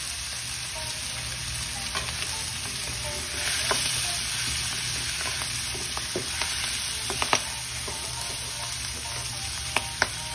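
Shrimp, sausage and onions stir-frying in a nonstick frying pan: a steady sizzle, with the spatula scraping through the food and now and then tapping sharply against the pan, twice in quick succession about seven seconds in and again near the end.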